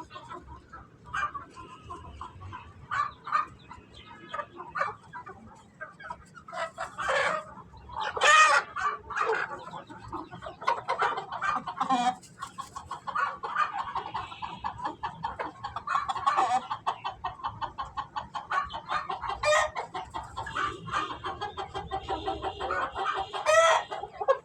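Aseel chickens clucking in a steady run of short calls, with about four louder, sharper calls standing out through the stretch.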